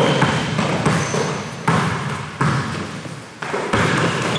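Basketball bouncing on a gym floor, four bounces less than a second apart.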